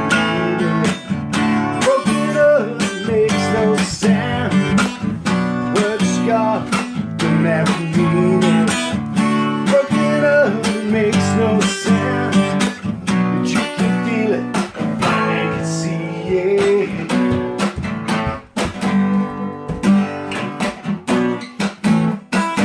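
Acoustic guitar music, strummed chords with a picked melody line over them, in an instrumental passage of an unplugged song.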